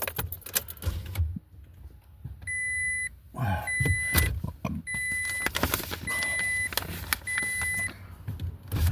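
An electronic beep repeating five times at an even pace, about once every 1.2 seconds, over clicks, knocks and rustling from handling.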